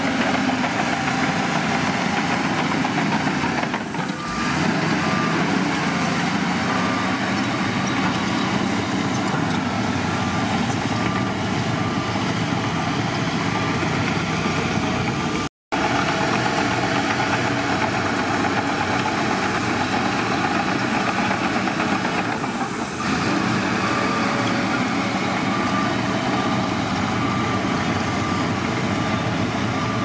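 Shantui DH17C2 crawler bulldozer's diesel engine running steadily under load as it pushes and spreads dirt. A backup alarm beeps in spells, once before the middle and again near the end. The sound cuts out for a split second near the middle.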